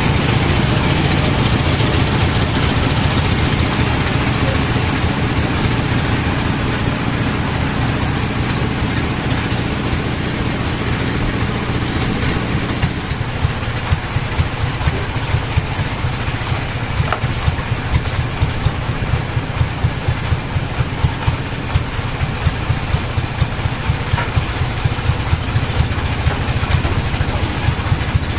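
An engine running steadily. About thirteen seconds in it settles to a lower idle with a regular beat of roughly two thumps a second.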